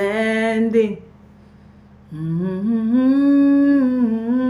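Unaccompanied female worship singing: the end of the sung word "understanding" held for about a second, a short pause, then a long sustained hummed note that slides up and holds.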